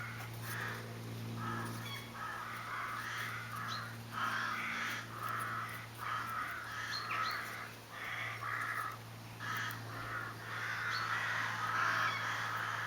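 Crows cawing repeatedly, call after call with short gaps, over a steady low hum.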